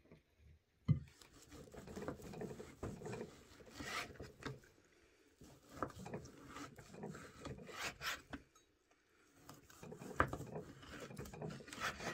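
Large kitchen knife sawing through a slab of smoked bacon onto a wooden cutting board, in three spells of rasping back-and-forth strokes with small clicks. A sharp knock comes about a second in.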